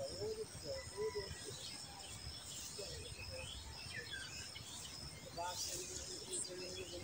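Rural outdoor ambience: birds chirping and calling over a steady high thin insect-like tone, with a low rumble underneath.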